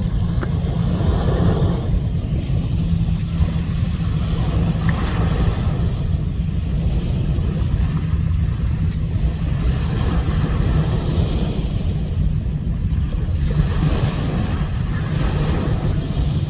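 Wind buffeting the microphone and water rushing, over a steady low engine hum from a boat on the water.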